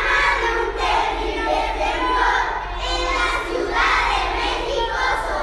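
A group of schoolchildren reciting a poem in unison, their many voices shouting the lines together in phrases with short breaks between them.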